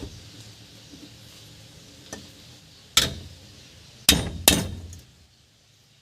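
Sharp metallic clinks and knocks, three loud ones within about a second and a half midway through, from steel engine valves and parts being handled on a workbench.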